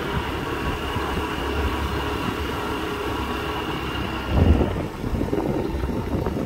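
Motorbike riding along a road: engine hum under steady wind buffeting the microphone, with a louder gust about four seconds in.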